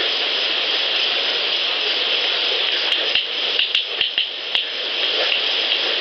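A quick run of six or seven sharp rock clacks, stones knocked together, about halfway through, over a steady hiss.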